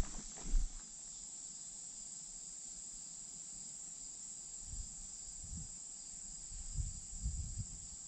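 Steady, high-pitched insect chorus buzzing without a break. A few dull thumps come through, one just after the start and several in the second half.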